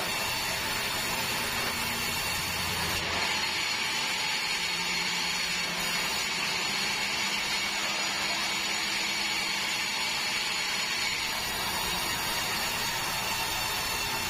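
Sawmill band saw running steadily and cutting a long meranti plank as it is fed through. A low hum drops away about three seconds in.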